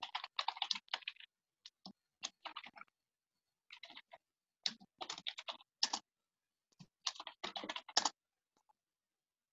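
Typing on a computer keyboard: runs of quick keystrokes with short pauses between them, stopping about eight seconds in.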